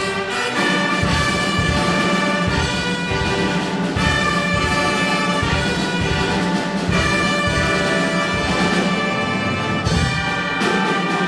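Orchestral music led by brass, with held chords over a pulsing low beat.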